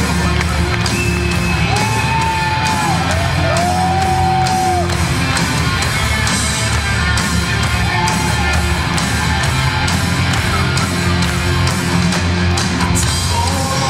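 Loud rock music with electric guitar and a steady beat, played over a hall PA, with a few shouts and whoops from the audience in the first few seconds.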